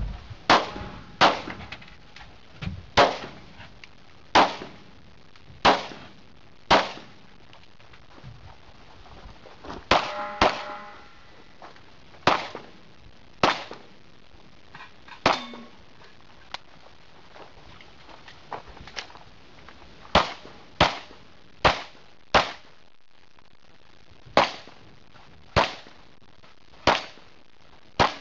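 Pistol shots fired in a USPSA action pistol stage: about twenty sharp shots, singly and in quick pairs, with pauses of a second or more between some of them.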